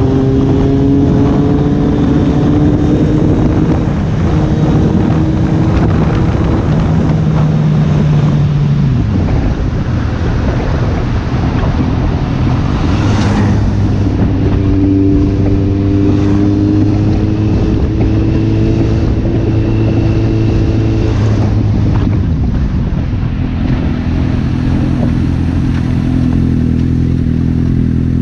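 Kawasaki Z800's inline-four engine through a Two Brothers aftermarket exhaust, running hard under way. The engine pitch climbs, falls sharply about nine seconds in and again about twenty-two seconds in, and otherwise holds fairly steady.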